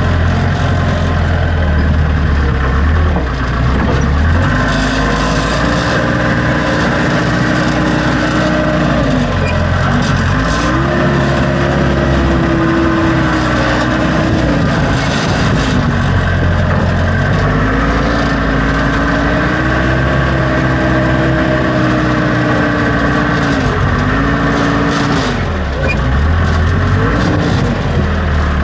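Backhoe's diesel engine idling, then revving up and holding at higher speed under load several times, dropping back in between, and settling back to idle near the end.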